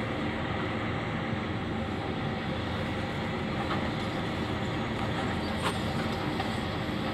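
Hitachi Zaxis 470 excavator's diesel engine running steadily, with a single faint click a little after the middle.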